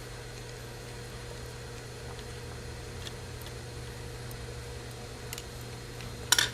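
A few faint, light clicks of small screws and a screwdriver being worked into a sewing machine's needle plate, over a steady low hum, with a sharper click near the end.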